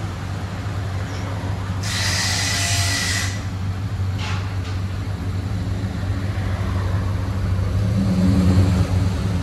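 1971 Chevelle SS V8 idling steadily through a true dual exhaust with an H-pipe and Flowmaster Super 10 mufflers; the engine has an exhaust manifold leak. A brief hissing rush comes about two seconds in, and the idle sounds a little louder near the end.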